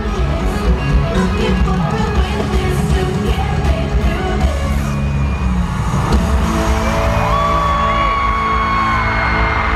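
Live pop concert music through an arena sound system, recorded from the audience: loud, with heavy bass, and a long held note coming in about seven seconds in.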